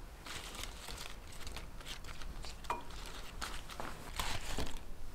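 Crisp butterhead lettuce leaves rustling and crinkling as they are handled and laid in a bowl, in a run of short, irregular strokes.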